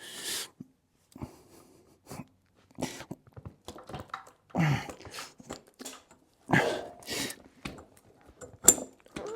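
A man grunting and breathing hard in short bursts while straining to force a Honda CB750's bank of carburetors onto the rubber intake manifolds, with scattered clicks and knocks from the parts being handled.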